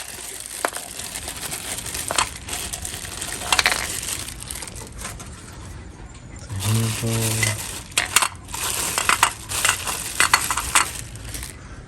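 Grinder parts and packaging being handled: plastic and paper crinkling with scattered sharp clicks and clinks of the parts. A short low hum sounds a little past halfway.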